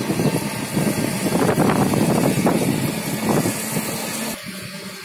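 Rumbling road and wind noise from riding in a cycle rickshaw. It quietens abruptly about four seconds in.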